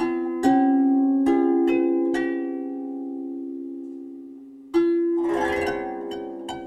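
Outro music: a slow melody of plucked string notes that ring out and fade, with a brief shimmering swell a little past the middle.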